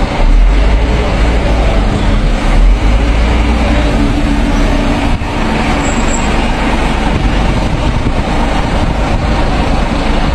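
A heavy vehicle's engine running, heard as a steady loud rumble with dense noise over it. The low rumble is strongest for the first few seconds.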